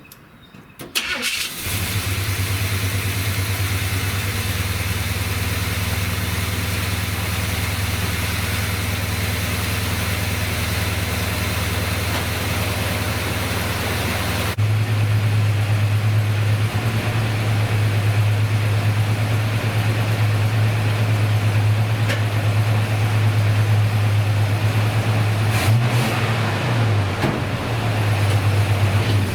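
1970 Buick Wildcat's 455 V8 engine starting about a second in, then idling with a steady low drone. About halfway through it gets louder, and near the end it briefly changes pitch.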